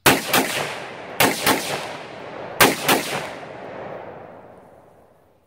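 Bravo Company 11.5-inch short-barrelled AR-15 rifle firing six shots in three quick pairs, the pairs a little over a second apart. Each report rolls on in a long echo that fades away over a few seconds after the last pair.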